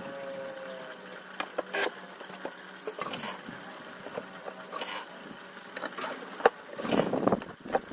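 Scattered light clicks and knocks over a low steady hum, with a cluster of knocks near the end. A faint tone fades out in the first second.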